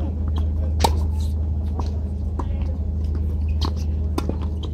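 Tennis ball strikes and bounces on a hard court during a doubles rally: a handful of sharp pops, the loudest about a second in, over a steady low hum.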